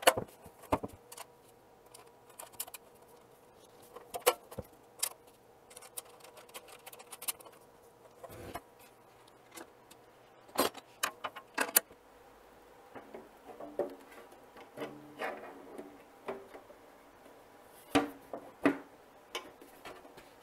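Scattered clicks, taps and metallic clinks of screws, nuts and a hand tool being handled while two pieces of a planer's dust chute are screwed together, with a few louder knocks.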